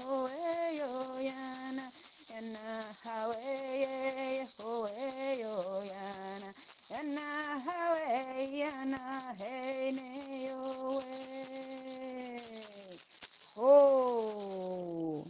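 A voice sings a chant in vocables, holding long notes, over a hand rattle shaken steadily throughout. Near the end comes a final note, the loudest of the passage, that slides down in pitch.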